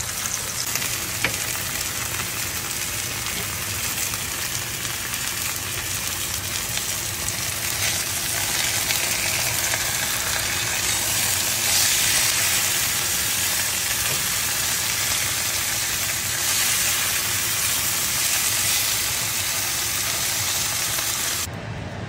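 Pork chorizo sizzling and frying in oil in a nonstick pan while being stirred with a wooden spoon, then whole nopal cactus paddles sizzling in oil on a hot comal as they are turned with tongs. The sizzle gets louder about halfway through and drops away near the end.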